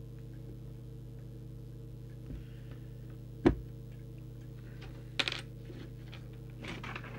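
Steady electrical mains hum with a sharp click about three and a half seconds in and a brief clatter about five seconds in.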